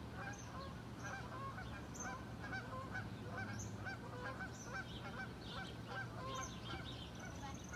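A flock of geese honking, many short calls overlapping, several a second, without a break.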